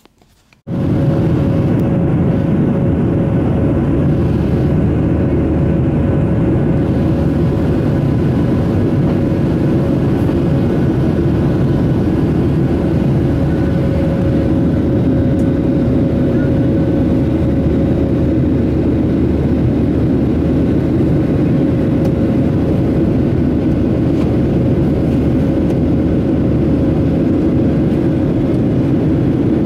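Steady cabin noise of a jet airliner in cruise: a constant deep rush of engine and airflow with a faint steady hum on top, cutting in abruptly under a second in.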